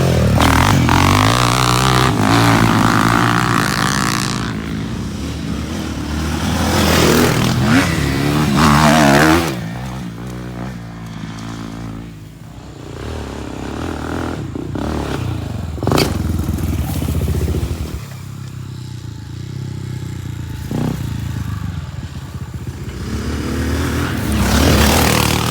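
Off-road ATV and dirt-bike engines revving up and down as they ride the track, the pitch rising and falling, loudest as they pass close at the start, around eight to nine seconds in and near the end. A sharp knock about sixteen seconds in.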